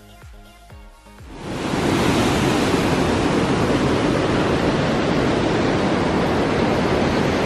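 Quiet background music with a beat gives way, a little over a second in, to a loud, steady rush of creek water tumbling over rocks in a canyon.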